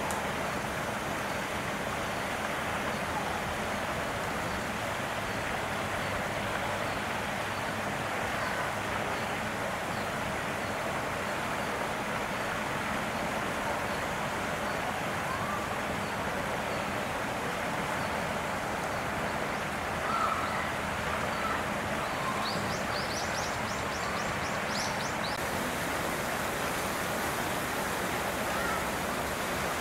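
Steady outdoor background noise, an even hiss like wind or distant traffic, with faint high bird chirps, a quick cluster of them about three-quarters of the way through.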